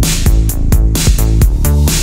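Background electronic dance music with a steady beat and a bass line.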